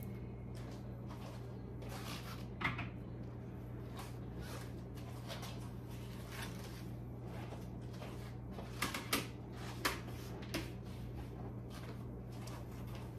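Occasional light knocks and clicks from handling things on a kitchen counter, a small cluster of them near the end, over a steady low hum.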